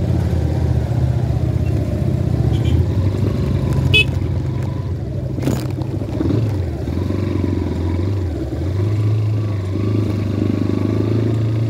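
Motorcycle engine running at low speed as the bike rolls slowly over a dirt track, its low hum shifting up in pitch about nine seconds in. A sharp click about five and a half seconds in.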